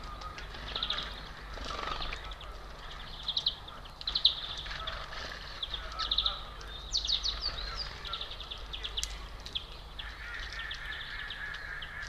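Small songbirds at a feeder calling: short, high, rapid chirpy trills and twitters, one every second or two, over a faint steady low hum.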